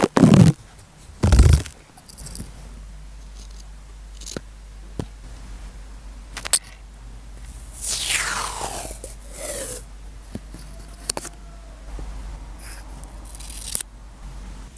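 Close-up desk sounds of sticky-note paper and a pen being handled: two loud knocks near the start, then scattered light scratches and clicks, with a longer rasp falling in pitch about eight seconds in.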